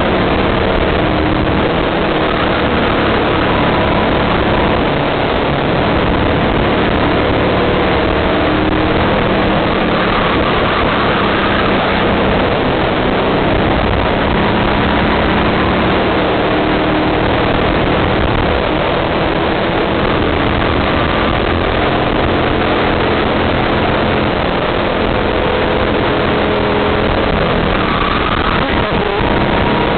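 Go-kart engine running hard, heard from a camera mounted on the kart, its pitch rising and falling with the throttle through the corners, over a dense rush of wind and road noise.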